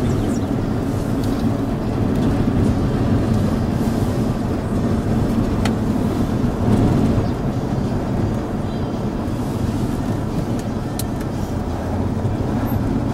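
Steady road and engine rumble heard inside the cabin of a moving vehicle, with a couple of faint clicks.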